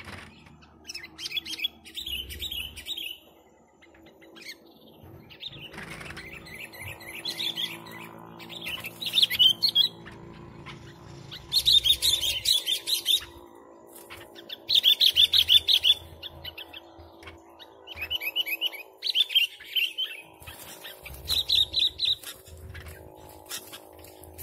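Sooty-headed bulbul (kutilang) singing: bursts of rapid chirping notes, each about a second long, come every few seconds. A faint steady low hum runs under the song.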